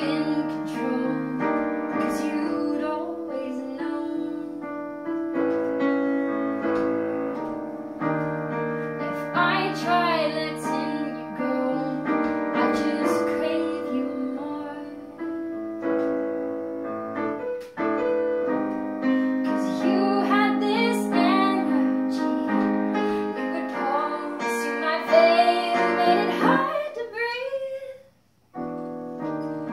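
A woman singing while accompanying herself on a digital piano, playing sustained chords. Everything stops for a brief silence near the end, then the piano comes back in.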